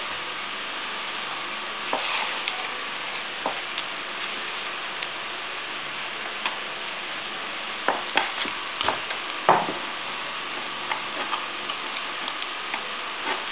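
Masking tape peeling off its roll as it is wound round a PVC pipe joint to seal it airtight: a steady crackly hiss with scattered sharper ticks and clicks, the loudest a little past the middle.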